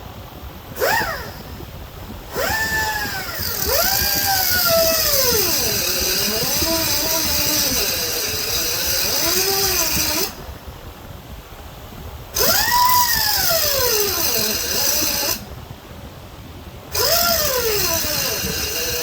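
Die grinder with a cutoff wheel cutting a slot into a rounded-off screw head. It runs in four bursts, one long run and three shorter ones: the motor whine rises as it spins up, then sags and wavers as the wheel bites into the metal, under a harsh grinding hiss.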